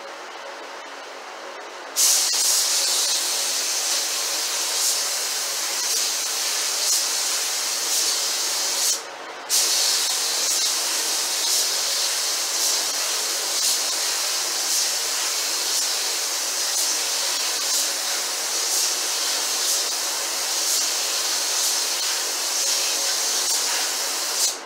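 Hose-fed paint spray gun hissing as primer is sprayed onto a cabinet panel. The trigger is pulled about two seconds in, let go briefly near nine seconds, then held until the very end.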